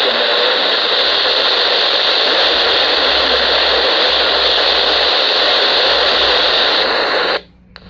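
Static hiss from a weather radio receiver with no clear signal, steady and loud, cutting off suddenly near the end.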